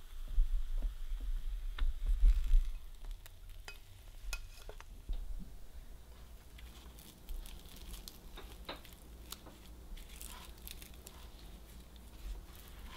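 A few dull knocks in the first seconds as the cooked scallion pancake is handled, then light crackling and ticking as fingers pick at and pull apart its crispy, waffle-pressed layers.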